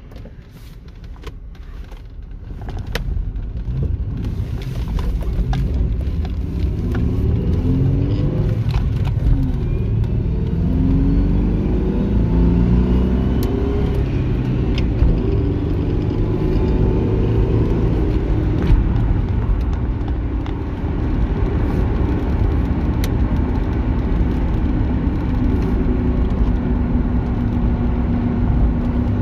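2001 Ford Mustang heard from inside the cabin as it pulls away and accelerates. The engine note rises and drops back several times as it shifts up through the gears, then settles into a steady cruise with road rumble.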